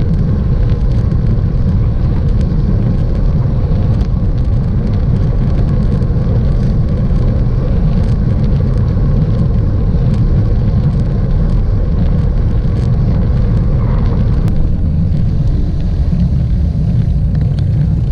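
Wind buffeting the microphone of a bike-mounted camera on a road bike riding at speed: a loud, steady, low rumble with the hiss of tyres on tarmac.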